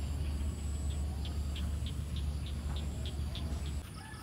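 Outdoor ambience: a steady low rumble of wind on the phone's microphone, with a faint insect chirping about three times a second. The rumble drops away abruptly near the end.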